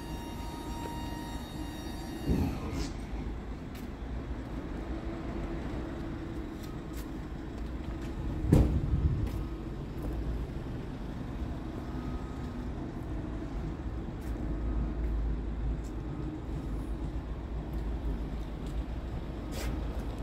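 Steady low hum of a Scania R tractor unit's diesel engine idling. A dull thump comes about two seconds in, and a louder one about eight and a half seconds in.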